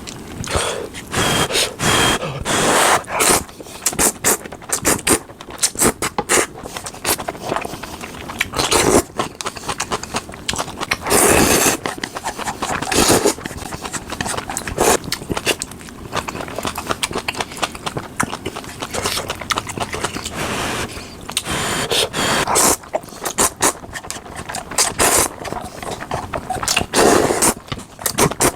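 A person eating ramen noodles close to the microphone: repeated noisy slurps of noodles and broth, irregular and of varying length, with chewing and short clicks in between.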